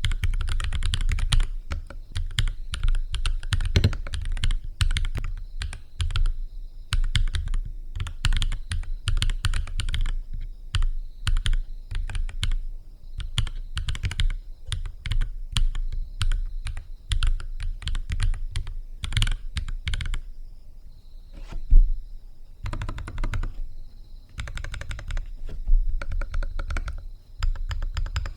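Typing on a NuPhy Halo 65 mechanical keyboard with Gateron Baby Kangaroo tactile switches: a fast, continuous run of keystrokes with a deep, full-bodied click. About three-quarters through the typing thins out briefly, broken by one louder keystroke thump, then resumes.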